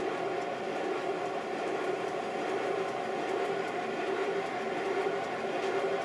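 5-inch gauge model Stirling Single steam locomotive running steadily on compressed air on the bench, its driving wheels turning free and the rods, crossheads and axle pump working, giving an even mechanical running sound.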